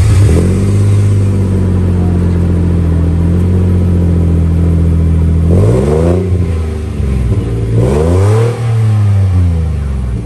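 Nissan Xterra's engine idling steadily through a NISMO aftermarket cat-back exhaust right after starting, then revved twice, the pitch rising and falling each time.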